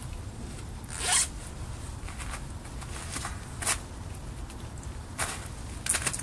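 Zipper on a cloth bag being zipped in a few short pulls, the loudest about a second in.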